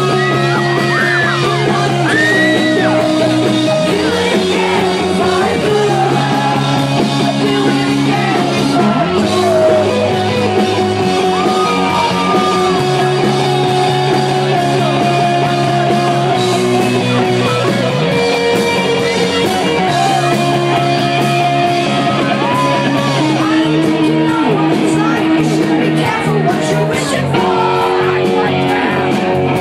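A rock band playing loud and live, with a woman singing into a microphone over amplified guitars, bass and drums. The chords change every couple of seconds, and the sound is heard from the crowd in a concert hall.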